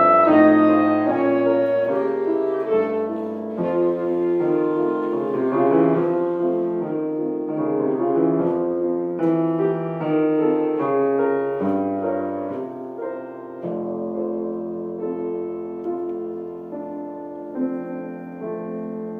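A solo wind instrument playing a slow melody in sustained notes over piano accompaniment, growing gradually softer through the passage.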